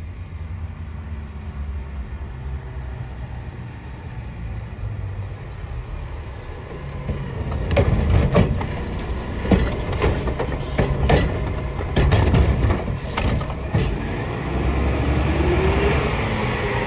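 Mack LR garbage truck's engine running as it pulls up. About halfway through comes a run of bangs and knocks as its Curotto Can arm grabs a wheeled cart, tips it and sets it back down. Near the end the engine note rises as the truck pulls away.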